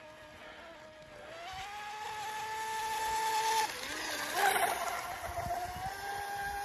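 Electric radio-controlled model boat running at speed, its motor a steady whine that rises in pitch a little over a second in. Near the middle the whine drops briefly with a short splashy hiss, then climbs back and holds steady.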